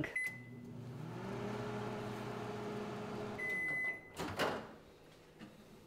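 Countertop microwave oven: a short keypad beep, then the oven running with a steady hum for about three seconds, a second beep as it stops, and a clunk of the door being opened about four seconds in.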